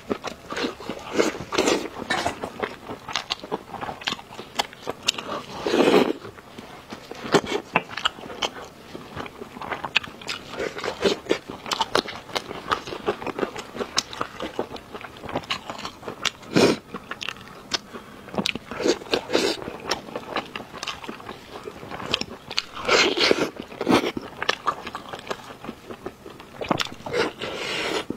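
Close-miked eating of braised pork knuckle: wet chewing and lip smacking with many quick clicks. A few louder bites come about six seconds in, just past halfway, and toward the end.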